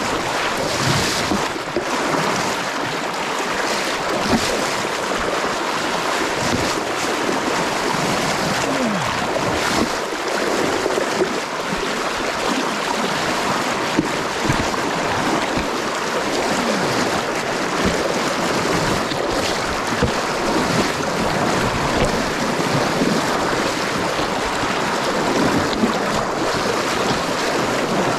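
Shallow river current rushing steadily, with splashing as a wading angler's legs and wooden wading staff push through the water.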